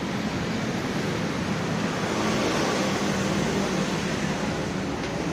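Steady busy-street ambience: a continuous wash of traffic and crowd noise with indistinct voices in the background.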